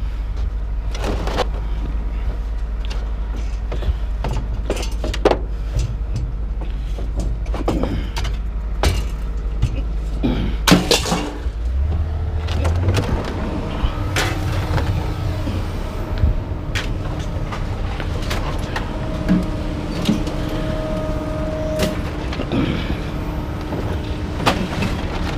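A vehicle engine running steadily under a string of scattered metal clanks and knocks, the loudest bang about eleven seconds in.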